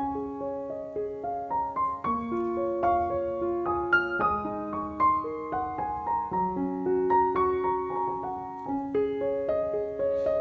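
Background music: a gentle solo piano melody, one note after another over held lower notes.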